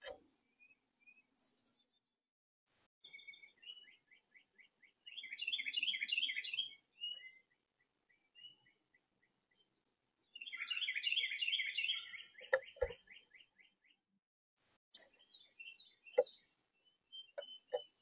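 Songbirds singing: two long runs of quick repeated whistled notes with a dense burst of song, from about three to seven seconds in and again from about ten to fourteen seconds in, with scattered short chirps between. A few sharp knocks on the bird feeder near the end.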